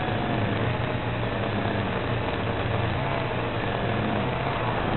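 Micro FPV quadcopter's motors and propellers running in flight: a steady whine whose pitch wavers slightly, over a hiss.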